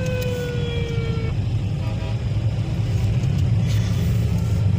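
Steady low rumble of a car's engine and road noise heard from inside the cabin in slow traffic. A siren's slowly falling wail carries over into the first second or so, then stops.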